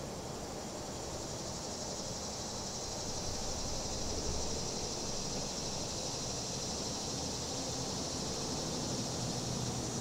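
Cicadas buzzing in a continuous high drone that swells about three seconds in, over a low, steady rumble of traffic.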